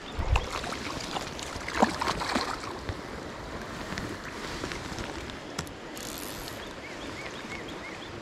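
Creek water running steadily over the stones, with a few splashes about two seconds in as a hooked rainbow trout thrashes at the surface beside the landing net.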